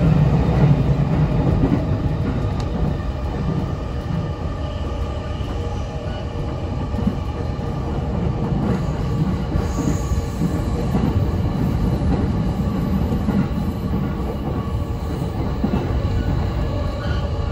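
Electric commuter train heard from inside the car, running steadily over Speno-ground continuous welded rail: a smooth, even rumble with faint steady tones and no regular rail-joint clicks.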